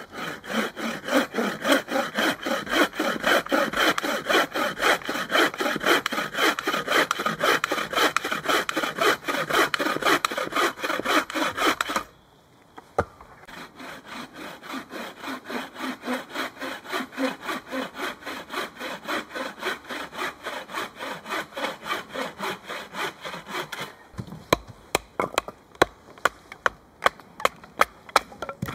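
Hand saw cutting through a log of firewood in quick, even back-and-forth strokes. It stops briefly about twelve seconds in, resumes more quietly, and near the end turns into sharper, sparser clicking strokes.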